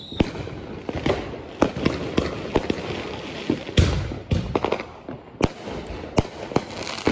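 Fireworks going off: a string of sharp bangs and pops at uneven intervals, with the loudest, deepest boom about four seconds in.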